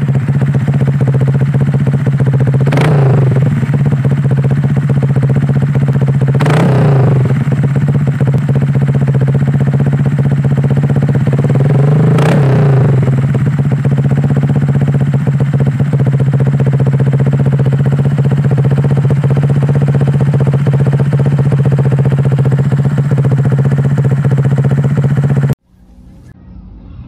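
Honda Click 150i scooter's single-cylinder four-stroke engine idling through an SC Project aftermarket exhaust, blipped three times with quick revs that rise and fall back to idle. The sound cuts off suddenly near the end.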